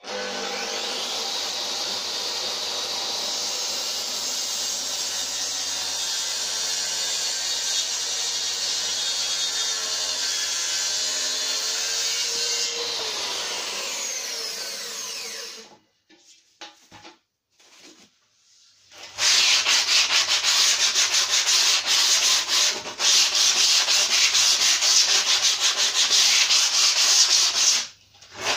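Makita plunge-cut circular saw running along its guide rail, trimming the bottom edge of a tulip poplar door, then released and winding down with a falling whine. After a short pause, a hand sanding block is rubbed back and forth along the freshly cut edge in quick strokes, louder than the saw.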